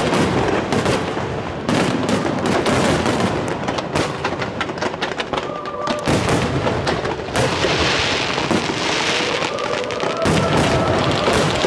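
Fireworks display: a dense, continuous run of bangs and popping from aerial shells bursting, with a stretch of high crackling about eight seconds in.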